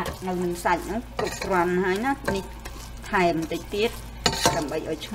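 Metal spoon stirring and scraping across the bottom of a stainless steel pot, squeaking in a rising and falling tone with each stroke about once a second, over a light sizzle of palm sugar melting in hot oil.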